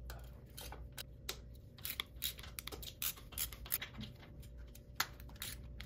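Faint, irregular clicks of a socket wrench working the rocker box cover bolts on a Harley-Davidson Twin Cam engine, several a second, over a low steady hum.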